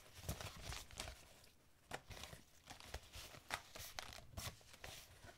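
Stack of paper sticker sheets being shuffled and leafed through by hand: faint, irregular rustles and soft flicks as the sheets slide over one another.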